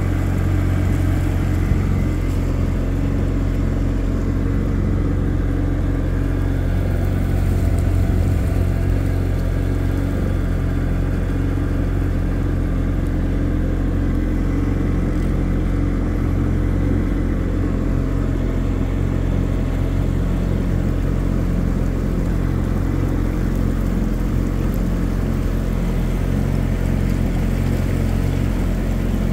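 A motorboat's engine running steadily with an even low hum, heard from on board.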